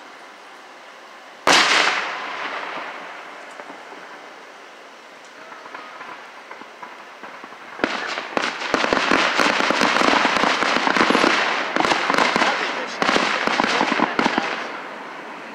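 Aerial fireworks: one shell bursts with a sharp bang about a second and a half in, its report trailing off. From about eight seconds in comes a dense barrage of fast crackling and popping with scattered louder bangs, lasting about seven seconds.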